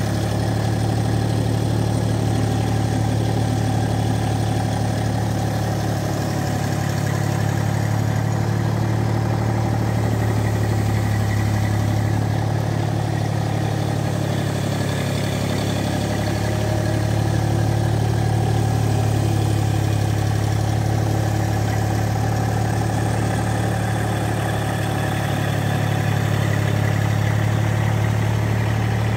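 Compact tractor's diesel engine running steadily at low revs, a constant low hum with no change in speed.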